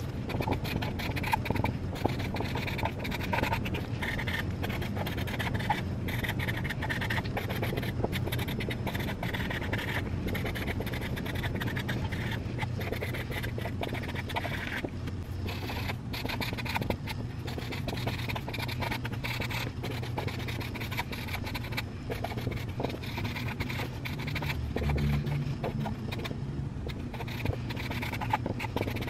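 Felt-tip marker scratching across a paper envelope as addresses are written out, a continuous run of short strokes, with a low steady hum underneath.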